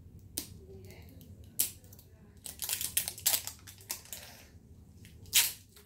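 Plastic wrapping of an L.O.L. Surprise! ball crinkling and snapping in short bursts as it is peeled open by hand, with a quick flurry in the middle and the loudest snap near the end.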